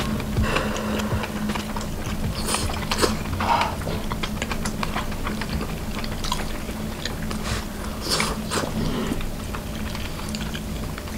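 Eating sounds: chewing and biting, with irregular light clicks of chopsticks against a small bowl, over a steady low hum.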